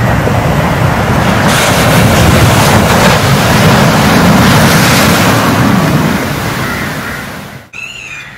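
Sea surf breaking against a rock breakwater: a loud, steady wash of waves that swells and then fades. It cuts off abruptly near the end, leaving a short, wavering high-pitched sound.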